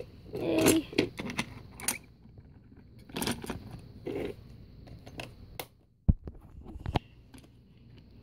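Plastic toy trains and track pieces being handled: scattered clicks, clatter and rustling, with two sharp knocks a second apart near the end.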